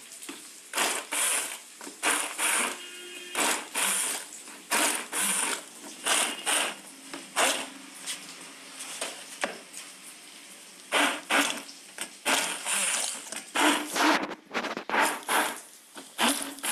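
Hand-held stick blender puréeing soft tomatoes in a plastic bowl, its motor whirring in repeated short bursts as the blade churns the pulp.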